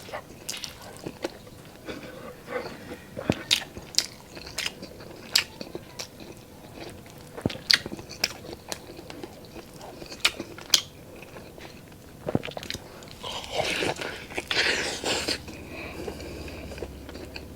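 Close-miked eating of pork adobo with rice: chewing with wet mouth clicks and smacks scattered throughout. A denser noisy stretch of about two seconds comes near the end.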